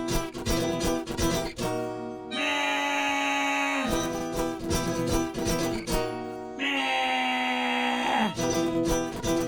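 Acoustic guitar strumming chords in an instrumental break of a song, with a long held melody note over it twice, each sliding downward as it ends.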